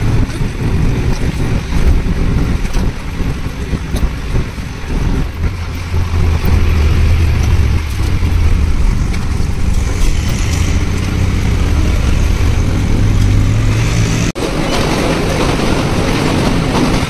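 Motor vehicle on the move: a steady low engine hum under road and wind noise. About fourteen seconds in the sound breaks off sharply and resumes as a hissier, even rush.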